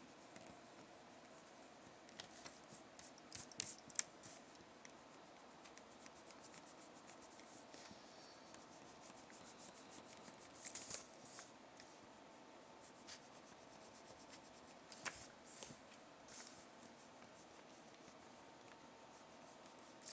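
Faint eraser rubbing on paper in short, scattered strokes, clearing pencil guidelines from an inked drawing.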